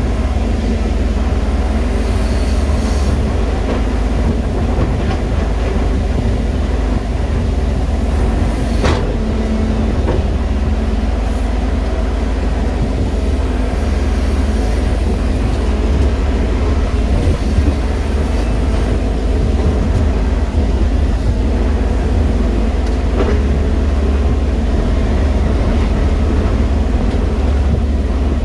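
Diesel engine of a JCB 215 excavator running steadily, a loud continuous low rumble, with one sharp click about nine seconds in.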